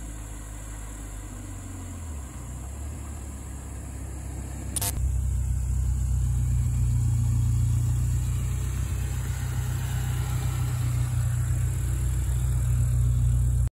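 BMW E34 518i's four-cylinder petrol engine running at low speed as the car approaches, then idling steadily close by, louder and lower. There is a short sharp click about five seconds in.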